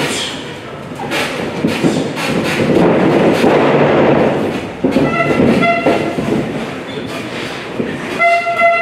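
Crowd noise in a large echoing hall during a wrestling match: a noisy swell of shouting and movement a few seconds in, then several short held high-pitched calls around the middle and near the end.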